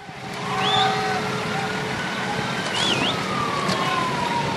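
Fire truck siren wailing, its pitch falling slowly over a few seconds, over steady traffic and wind noise.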